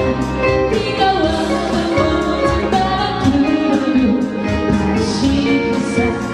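A woman singing a song over instrumental accompaniment with a steady beat.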